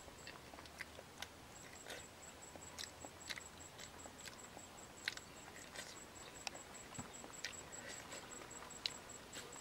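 Faint eating sounds: soft, irregular clicks from a small banana's peel being pulled back and from chewing and biting the fruit.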